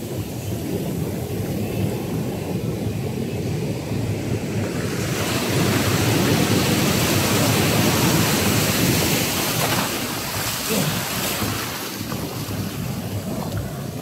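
Rough Andaman Sea surf breaking close by and foam washing up the sand. The wash swells louder about five seconds in as a big wave crashes in front, then eases off near the end.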